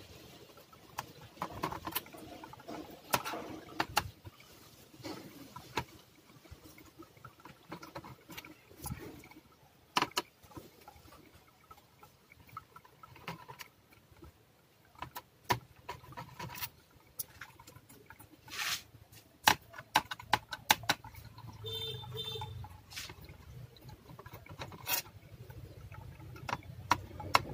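Irregular small clicks and taps of a thin metal pry tool against the laptop's plastic case and ribbon-cable connector latches as the connectors are unlatched, with a few louder snaps in the second half.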